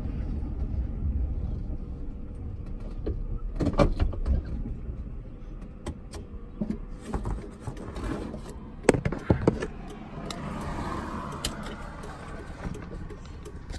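Vehicle engine and road noise heard from inside the cab while driving slowly, with a few sharp knocks and rattles about four seconds in and again around nine seconds, the loudest near nine seconds.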